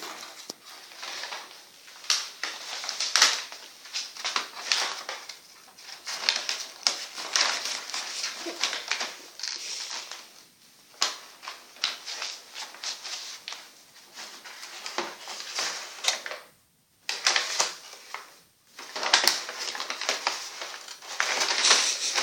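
A Starbucks paper bag crinkling and rustling in irregular bursts as a cat wrestles and tumbles inside it. The rustling stops for about two seconds roughly three quarters of the way through.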